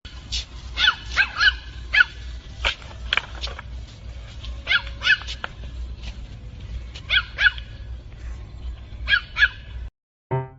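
A dog barking in short, high-pitched yaps, often two or three in quick succession with pauses between, over a steady low hum.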